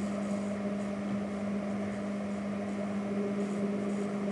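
Steady low electrical or mechanical hum with a faint hiss underneath, unchanging throughout.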